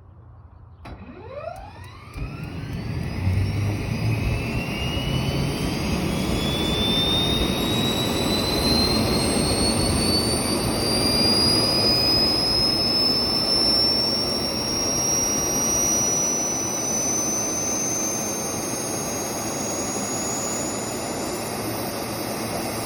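Airbus A320 auxiliary power unit (APU) starting: about a second in a whine sets off and rises steeply in pitch, then keeps climbing slowly, over a growing rush of turbine noise as the APU spools up toward running speed.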